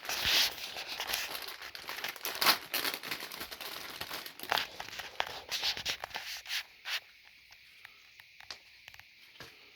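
Packaging crinkling and rustling as a pair of socks is taken out of it, busy with sharp crackles for about seven seconds, then only a few soft clicks.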